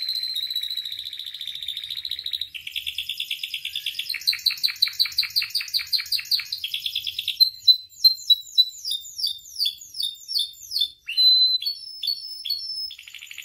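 Domestic canary singing one long unbroken song. For the first seven seconds or so it is fast rolling trills; after that it becomes a run of quick down-slurred whistled notes, about two or three a second, with short chirps near the end.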